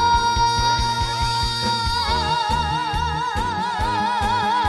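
A boy singing one long held note in trot style, steady at first and then with a wide, even vibrato from about two seconds in, over a band backing track with a steady drum beat.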